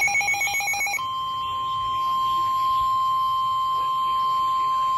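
NOAA Weather Radio alert signal. A pulsing, warbling electronic tone switches about a second in to a single steady high tone, the 1050 Hz warning alarm tone that announces a National Weather Service warning broadcast.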